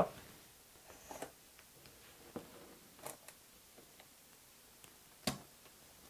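A few faint, sharp clicks as a pen tip presses the memory-door release button on a 27-inch iMac and the RAM compartment cover pops loose; the loudest click comes about five seconds in.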